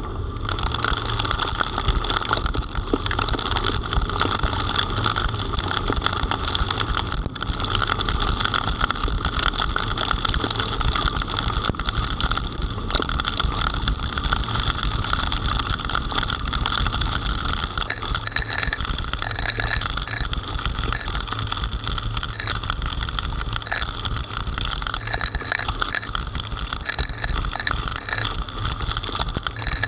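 Steady rush of heavy rain and driving wind over a 360 camera's housing mounted outside a moving car, with tyre noise from the wet road and a deep rumble underneath.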